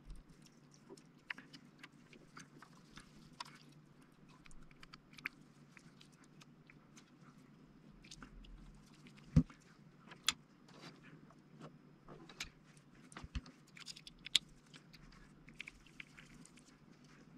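Irregular small clicks and taps of hands handling cables, connectors and a small screwdriver while working on a machine's wiring, with one sharper knock about halfway through, over a faint steady low hum.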